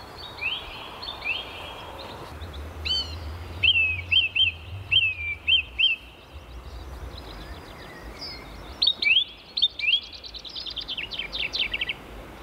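Songbirds singing: repeated short phrases of sweeping whistled notes, with a fast run of notes near the end.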